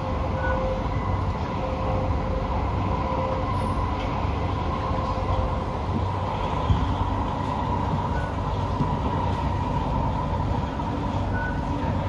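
Cabin noise of a Kawasaki C151B metro train running between stations: a steady rumble of wheels on the rails, with a steady hum above it.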